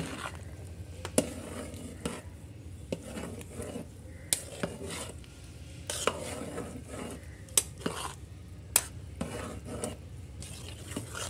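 A spoon stirring chicken pieces into wet, part-cooked rice in a steel pot, with sharp clinks of the spoon against the pot about once a second over a steady low hum.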